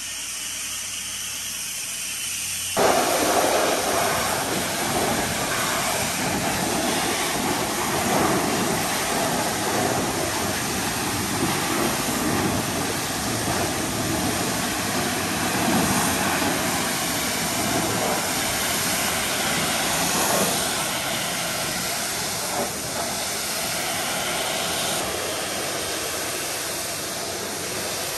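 High-pressure washer jet rinsing foam off a truck: a steady hiss of spraying water that becomes a louder, fuller rush about three seconds in and holds steady after that.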